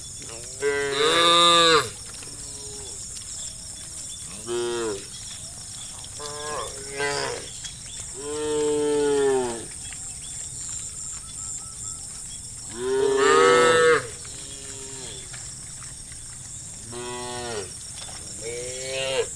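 Cows mooing: about seven separate moos, each rising and then falling in pitch. The two loudest come about a second in and about two-thirds of the way through.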